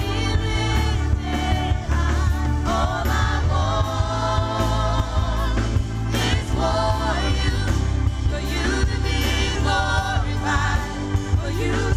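Gospel worship song: a praise team singing together over a band with strong bass and drums.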